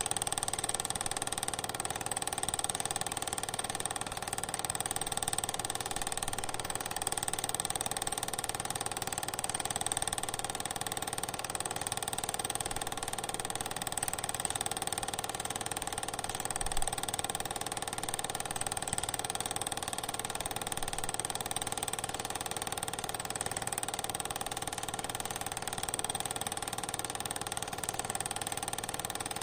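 Steady mechanical whirr of a film projector running, with constant even tones and no change throughout.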